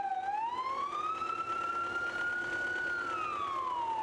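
An emergency vehicle's siren wailing in one slow cycle. It dips briefly, rises over about a second and a half to a held high note, then falls slowly near the end.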